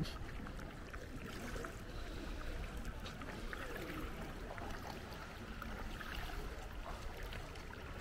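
Water lapping and trickling around a paddled sea canoe, with small paddle splashes, over a low steady rumble.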